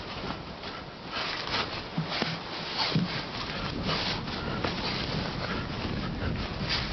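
Two men grappling on grass: hard breathing and scuffling of bodies and clothing in irregular short bursts, with a few dull thumps.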